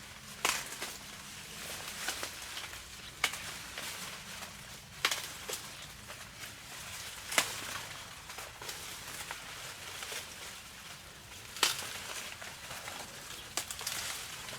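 Dry corn plants crackling and rustling during hand harvesting, with sharp snaps now and then as ears are broken off the stalks.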